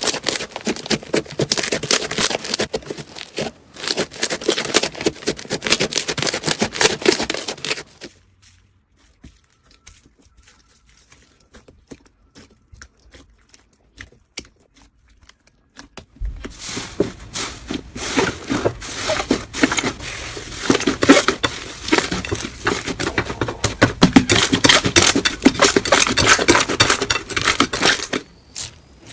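Slime being squished and worked, giving dense runs of crackling, popping clicks, with a much quieter gap of about eight seconds in the middle.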